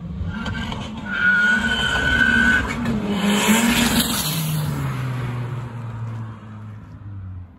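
Turbocharged 1.8 20-valve Mk1 Volkswagen launching hard on street tyres. The wheels spin with a steady high squeal for about two seconds while the engine revs, then the engine note drops in pitch and fades as the car pulls away.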